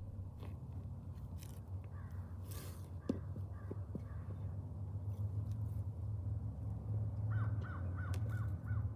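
Light rustles and clicks of hand-weeding, weeds being pulled and dropped into a plastic tub, over a steady low rumble. Near the end a bird calls about five times in quick succession.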